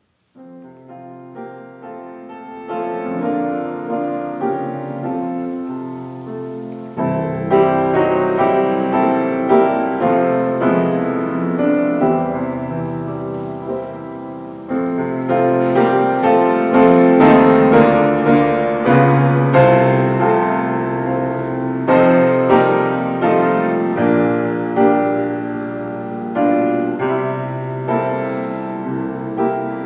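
Piano playing a slow piece of chords and melody, fading in over the first few seconds and swelling louder about seven seconds in and again midway.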